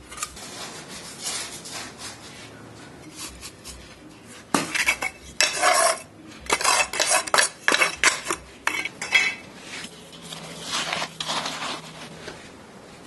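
Metal trowel scraping through dry cement mix and clinking against a metal hydraulic-tile mould as the mix is spread and levelled in the mould, in irregular runs of scrapes and knocks that are busiest in the middle.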